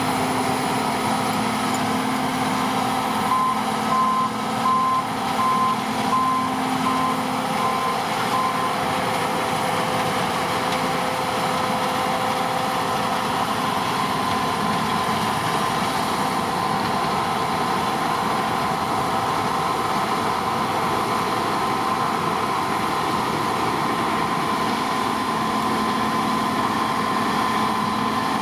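John Deere T560 combine harvester running steadily while harvesting: a dense mechanical noise with a steady whine. From about three seconds in, a reversing alarm beeps eight or nine times in a row, then stops.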